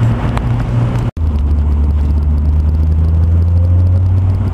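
Honda S2000's four-cylinder engine droning at steady revs through an HKS exhaust with a test pipe (catalytic converter delete) while driving. About a second in the sound drops out for an instant, then the drone goes on at a slightly lower pitch.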